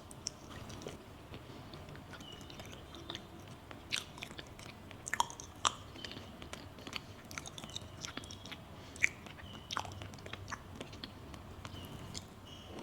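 Close-miked eating of a soft matcha pudding crepe: chewing with many sharp, wet mouth clicks and smacks, a few louder ones around the middle.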